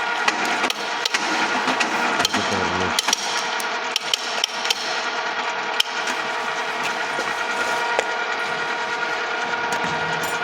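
Okuma & Howa STM 2V vertical milling machine running, its spindle drive giving a steady whine of several fixed tones, with irregular metallic clicks and knocks over it, the louder ones in the first half.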